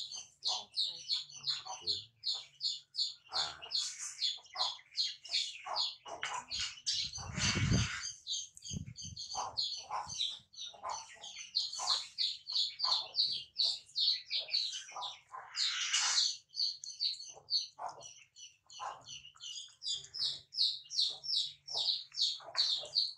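Small birds chirping rapidly and continuously, about three or four high chirps a second, with a soft thump about seven seconds in and a rustle of cloth or paper about sixteen seconds in.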